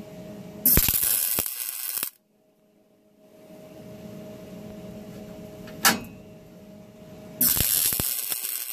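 MIG welder laying two short stitch welds, each about a second and a half of arc noise that stops abruptly: one about a second in and one near the end, with a single sharp click between them. The welds join a steel jack point to the body, and the heat is set high for penetration.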